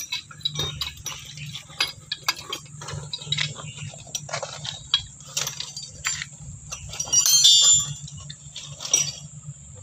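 Steel well pipe, pipe clamp and pipe wrench clinking and knocking as the pipe and fittings are handled, with a louder metallic scrape about seven seconds in. A low steady hum runs underneath.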